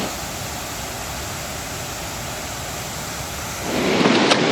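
Steady, even rush of white water from the Tuolumne River's cascades. About three and a half seconds in, it changes to a louder, brighter rush.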